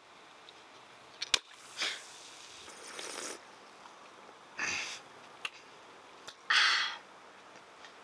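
Sharp clicks of an aluminium Coca-Cola can's ring-pull with a brief fizzing hiss, then sips and two short breathy exhales. The second exhale, near the end, is the loudest.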